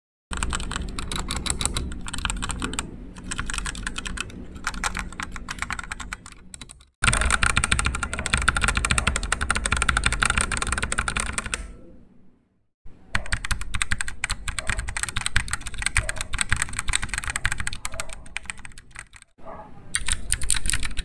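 Rapid typing on a MageGee MK-Box 65% mechanical keyboard, as four runs of fast keystrokes separated by brief pauses, each run on a different Outemu switch: silver, then purple, brown and gold. The purple run is the loudest.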